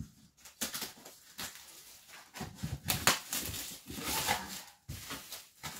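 A parcel being cut and opened with scissors: a run of snips, scrapes and crinkling of packaging, busiest in the middle.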